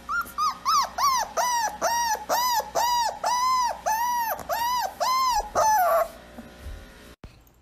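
A dog whining in a quick, regular series of high-pitched whimpers, about two or three a second, each rising and falling; the whining stops about six seconds in on a falling note.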